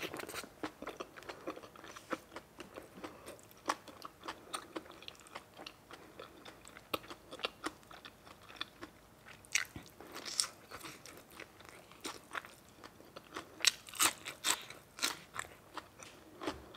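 A person chewing and crunching food with the mouth, a steady run of small crunches and wet clicks, louder in a few clusters near the end.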